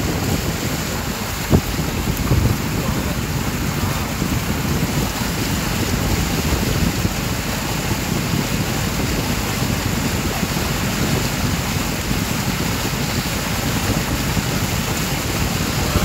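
Steady rush of water and wind noise on the microphone from a moving boat, with a single short knock about a second and a half in.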